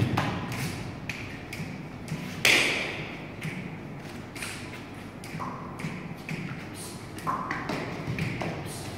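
Bare feet stamping and sliding on a large sheet of paper laid on a hard floor: irregular thuds and taps, the loudest about two and a half seconds in, with a few brief squeaks.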